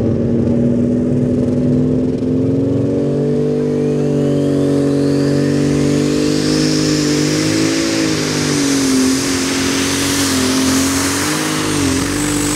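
Super Stock pulling tractor's turbocharged engine running flat out under load during a pull, its pitch holding high and nearly steady with slight wavers. A high whine climbs over several seconds, and the engine drops off right at the end as it comes off the throttle.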